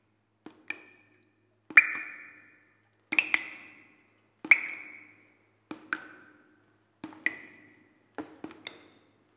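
A slow run of seven bright, ringing pings, each set off by a small click, at differing pitches. They come about one every second and a bit, and each fades within about half a second.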